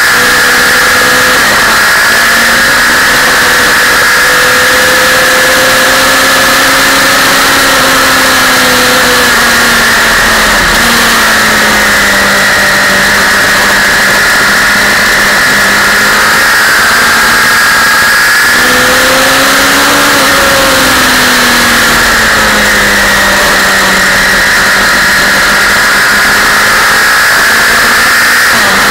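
Suzuki sport bike's engine running hard on track, its pitch falling and rising again several times with throttle and gear changes, under loud wind rush over the onboard camera.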